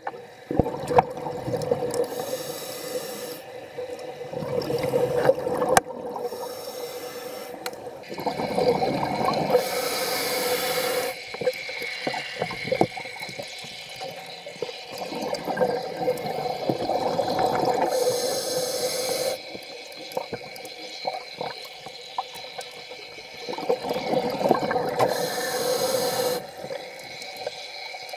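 Scuba regulator breathing underwater: a bubbling, hissing rush of breath and exhaled bubbles that comes in slow waves, about one breath every seven or eight seconds.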